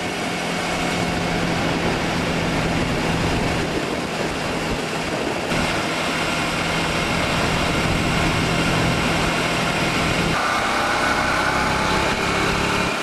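Motorcycle riding at highway speed: a steady engine hum under heavy wind rush over the windscreen. The sound shifts abruptly twice, where different stretches of riding are joined.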